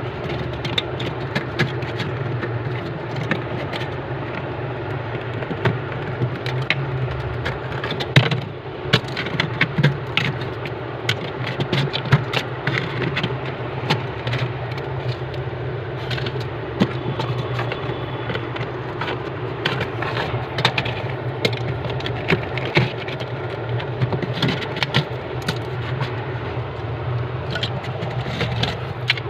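Ice being scraped and chipped out of a refrigerator's iced-up deep freezer: irregular sharp scrapes, cracks and clicks over a steady low hum.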